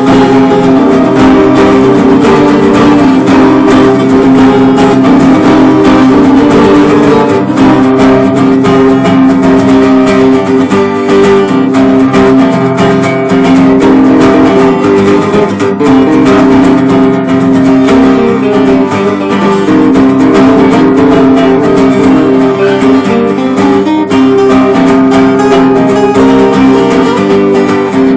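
Acoustic guitar playing continuously in a Spanish style, with fast, dense strumming over sustained chords.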